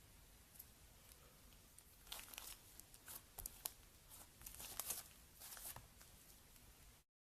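Slime being squeezed and stretched by hand, giving a faint run of irregular crackles and small pops from about two seconds in until nearly six seconds in.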